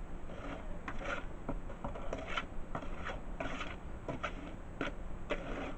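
Steel trowel scraping and scooping wet mortar in a plastic tub: a series of short, irregular rough scrapes.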